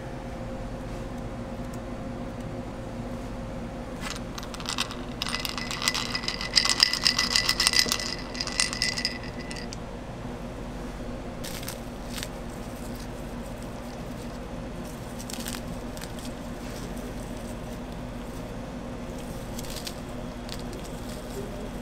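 Small hard chocolate balls poured from a cup and rattling onto a crepe: a few seconds of clatter with a ringing tone, over a steady low hum. Later come a few soft clicks and crunches as cookies are broken by hand over the toppings.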